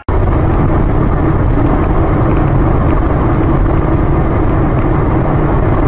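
Loud, steady road and engine rumble of a moving vehicle, starting abruptly.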